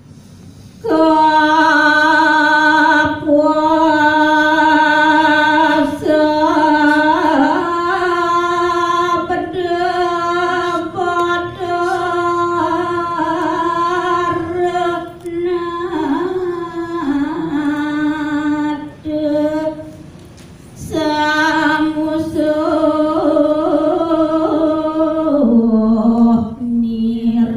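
A woman singing a kakawin verse solo and unaccompanied in the Balinese makakawin style: long held notes with small ornaments, a breath break about two-thirds of the way through, and the melody stepping down lower near the end.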